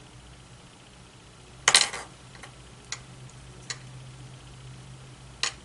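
Wooden clothespins clicking and clattering as they are opened and clipped on by hand: a sharp clatter of clicks about two seconds in, then a few single clicks, over a faint steady low hum.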